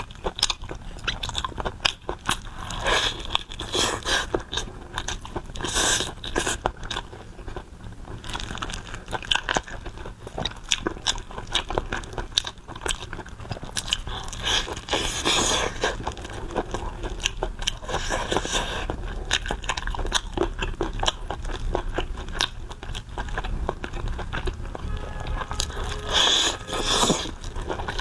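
Close-miked eating: a person biting and chewing crunchy food, with a dense run of crisp crunches and clicks and a few louder bites.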